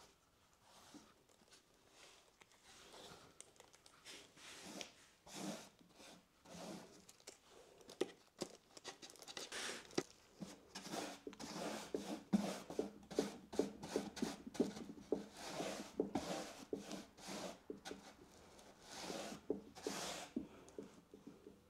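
A wide paintbrush stroking primer onto the reeded wooden sides of a round coffee table: repeated scratchy brushing swishes with quick ticks as the bristles drag over the ridges, busiest in the middle.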